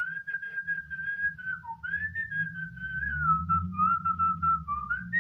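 A slow tune whistled in long held notes that slide gently up and down, over a low droning backing.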